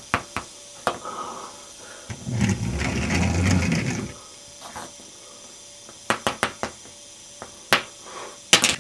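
Plastic Lego pieces tapping and clicking on a tabletop as a minifigure and a Lego car are moved by hand. A low rumbling sound runs for about two seconds in the middle. A burst of sharp clatters comes near the end as the car tips over.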